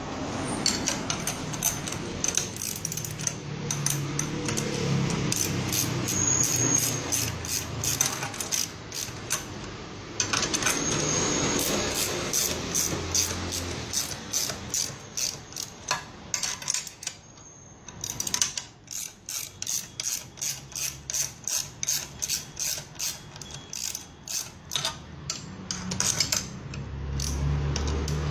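Ratchet wrench clicking as it is worked in short strokes to turn the screw of a bearing puller on a motorcycle crankshaft, settling into about two clicks a second in the second half.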